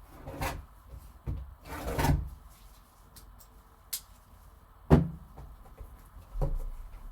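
Handling noises from trading-card packaging on a table: scattered knocks, clicks and a short rustle about two seconds in, with one sharp knock about five seconds in.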